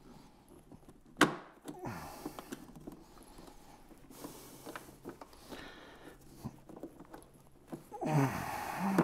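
Gloved hands handling the plastic fuel-line quick-connect fitting and clip on an outboard's inline fuel filter: scattered plastic clicks and glove rustling, with one sharp click about a second in and a louder stretch of rustling near the end.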